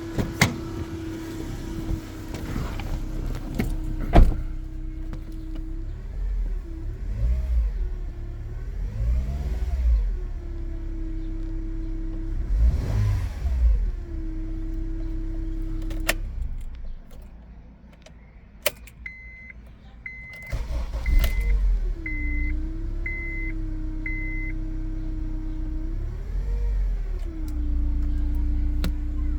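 Honda CR-V engine idling with a steady whine that rises and falls as the engine is revved several times; the owner calls it a strange noise but does not know its cause. About halfway through the engine sound drops out for a few seconds and returns, with a few sharp clicks, and an electronic chime beeps six times.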